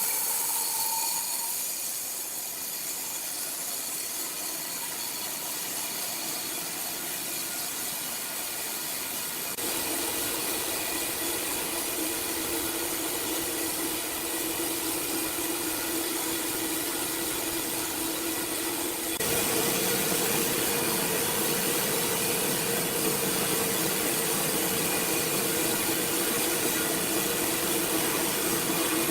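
Sawmill machinery running steadily: a continuous hiss over a steady mechanical hum. It jumps louder abruptly about a third of the way through and again about two thirds through.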